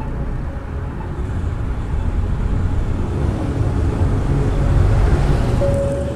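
Car road noise, a low rumble with tyre hiss, swelling to its loudest about five seconds in as an oncoming car passes. A steady held music tone comes in near the end.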